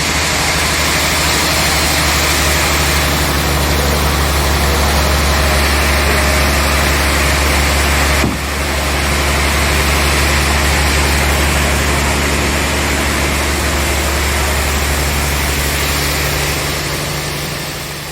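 Sawmill machinery running steadily: a loud low drone with an even hiss over it. It briefly dips about eight seconds in and fades near the end.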